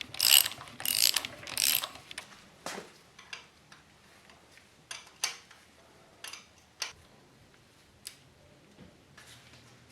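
Socket ratchet clicking in three quick strokes about two-thirds of a second apart, spinning off nuts that are barely tight. The strokes are followed by a few scattered light metallic clicks and clinks.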